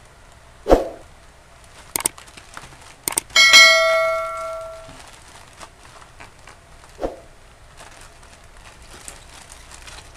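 Two sharp clicks followed by a bell-like ding that rings on and fades over a second or so, the sound effect of a subscribe-button and notification-bell animation. A dull thump comes about a second in and another about seven seconds in.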